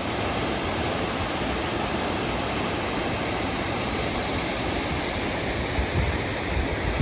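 Waterfall rushing in a steady, unbroken roar of falling water close by, with low wind rumble on the microphone near the end.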